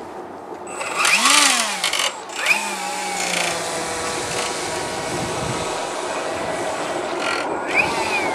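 RC airboat's brushless electric motor and air propeller whining, its pitch rising and falling sharply with throttle about a second in and again shortly after, then holding a steady high whine as the boat runs, with another rise near the end.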